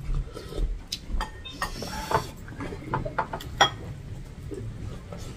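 Eating sounds at a table: scattered small clicks and clinks of spoons and fingers on bowls and plates, with mouth noises of chewing.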